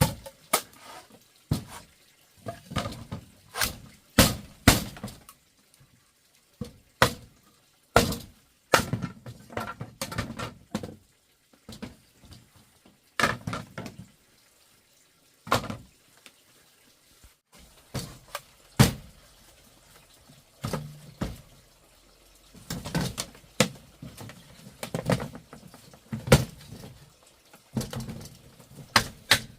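A long run of irregular sharp knocks and clinks, hard objects striking one another, some in quick clusters and others a second or more apart, with short gaps of quiet between.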